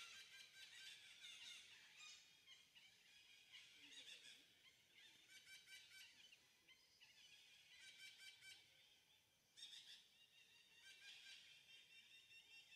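Faint, high-pitched chirping and trilling calls, coming and going in short clusters, like birds calling.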